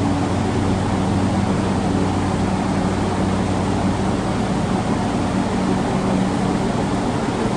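Steady hum and hiss of a stopped Hankyu 8300-series electric train standing at an underground platform, its onboard equipment running, with a low drone that fades in and out.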